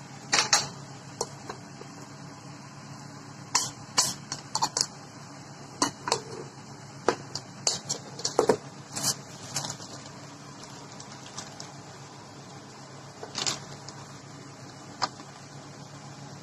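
Kitchen clatter: scattered sharp clicks and knocks of a plastic spatula and dishes against a pot and the counter, bunched in the first ten seconds with two more near the end, over a low steady hum.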